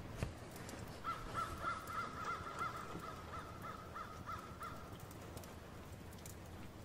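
A bird calling: a quick run of about a dozen short, clear notes, roughly three a second, starting about a second in and stopping a little past the middle. It sits over a faint steady background, with one soft knock right at the start.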